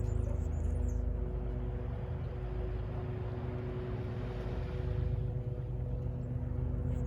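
Steady low city traffic rumble with a constant machine hum. A vehicle passes through the middle, swelling and fading, and faint bird chirps come near the start and the end.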